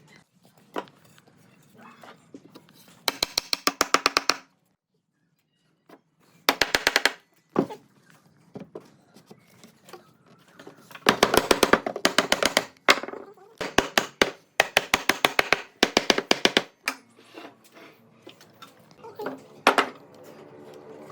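A power tool running in short bursts, each a rapid, even rattle of impacts lasting about a second, repeated several times with pauses between.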